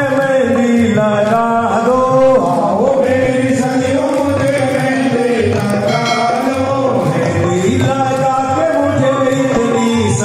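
Devotional chanting sung by a voice over loudspeakers, with instrumental accompaniment and light percussion strokes.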